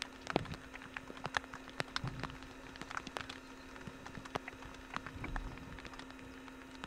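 Irregular sharp clicks and crackles scattered throughout, over a steady low hum.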